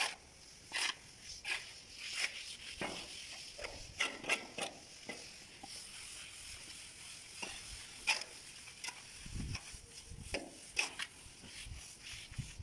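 Hand floats and trowels scraping over wet cement plaster on a wall, in short irregular strokes, with a few low thuds about nine seconds in.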